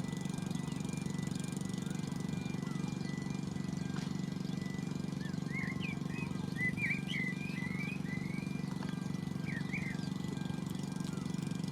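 Narrow-gauge train rolling along: a steady low rumble of wheels on rails with a faint high wheel squeal. A small bird chirps for a few seconds about halfway through.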